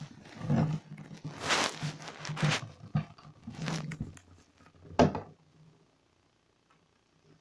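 Clear plastic hamster ball rolling and bumping across a bathtub floor: a run of irregular rumbling scrapes and knocks, with the sharpest knock about five seconds in. Then it goes still.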